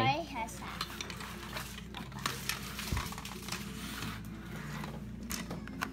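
Handling of a plastic toy jet and its cardboard packaging: scattered small clicks and rustles, with one sharper knock about three seconds in.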